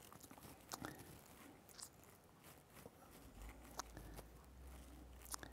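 Near silence: room tone with a few faint, scattered clicks, and a low hum that comes in a little past three seconds.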